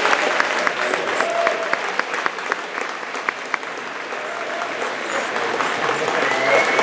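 Audience applauding, with individual claps standing out; the applause thins in the middle and swells again near the end.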